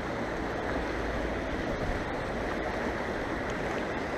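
Shallow, low-flowing river running steadily: an even rushing of water.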